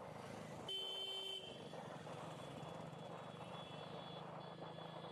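Steady engine and road noise from riding a motorcycle through town traffic. A horn sounds briefly, for under a second, about a second in.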